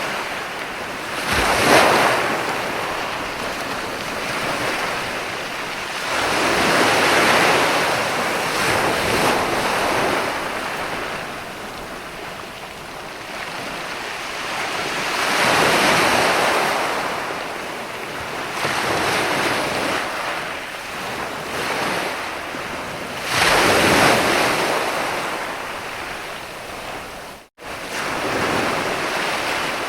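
Ocean waves breaking and washing in, rising and easing in slow surges every several seconds, with a split-second cut-out of the sound near the end.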